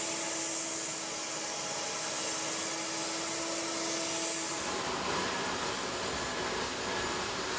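Jet aircraft turbine running steadily: an even rushing hiss with a steady hum, changing about halfway through to a brighter rush with a thin high whine.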